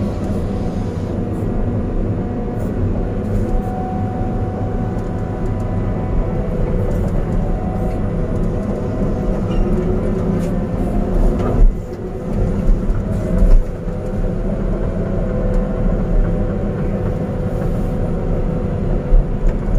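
Caterpillar 320D2 excavator's diesel engine and hydraulics running steadily under load as the bucket pushes through brush, heard from inside the cab. There are a few loud knocks a little past halfway and again near the end.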